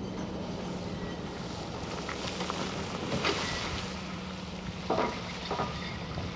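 Monighan 9-W walking dragline at work: its bucket dumps a load of rock and dirt that rattles down onto the pile, over a steady low machinery hum. The bucket and its chain rigging clank sharply a few times, around three seconds in and again near five seconds.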